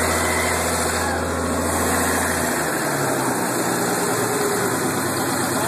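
Newly built 366-horsepower engine running steadily on its first start. A low hum under the engine noise drops out about two and a half seconds in.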